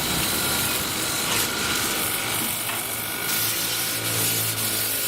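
Sandpaper rubbing over the refrigerator's metal body, a rapid rough rasping, over a faint steady whine.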